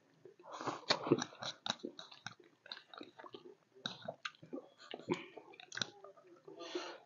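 Close-miked eating: wet chewing and lip smacks from people eating buffalo bone marrow and spicy noodles, a run of irregular short smacks and clicks. Two longer hissy sucking sounds come about half a second in and near the end.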